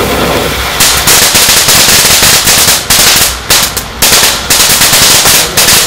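Lesli El Diablo firework fountain rushing steadily, then about a second in breaking into dense, rapid crackling that comes in bursts with short gaps between them.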